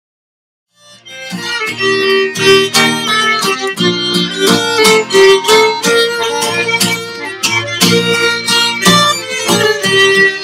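A violin, an acoustic guitar and a button accordion playing a lively folk tune together, the guitar strumming a steady beat under the held notes of the violin and accordion. The music starts suddenly about a second in, after silence.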